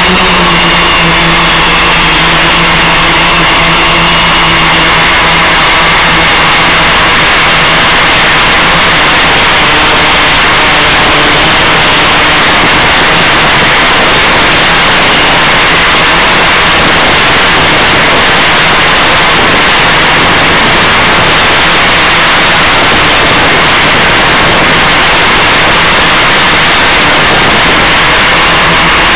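Steady, loud rushing hiss carried on the audio channel of an analog FPV video downlink, with a faint low hum under it that fades out after the first few seconds.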